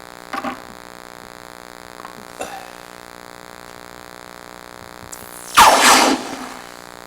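Steady electrical hum and hiss from a misbehaving camera's recording. Over it there are a couple of light knocks and, about five and a half seconds in, a short loud burst of noise.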